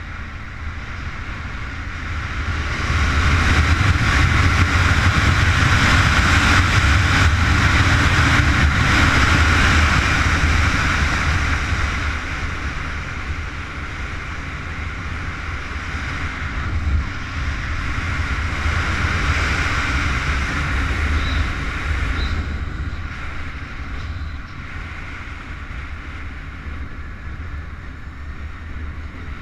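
Honda CBR919RR inline-four sport bike running at track speed, its engine under heavy wind rush on the rider-mounted camera. The sound swells about three seconds in, holds for several seconds, eases off, and rises again briefly later on.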